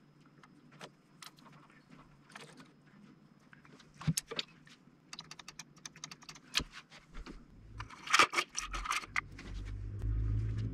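A screwdriver and small metal parts clicking and rattling against an aluminium frame as screws are worked by hand, with a dense burst of clatter about eight seconds in and a low rumble near the end.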